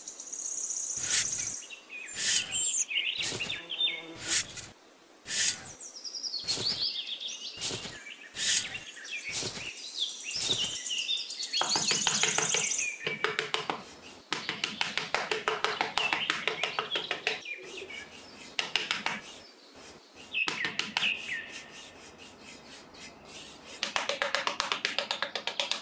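Small trowel scraping and smoothing sand in repeated short strokes, with birds chirping now and then.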